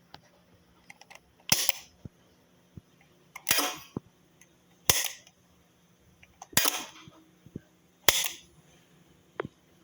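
Abnormal noise from a switched-on machine's motor: five sharp, crackling snaps every one and a half to two seconds over a faint steady hum, with a few light ticks between them.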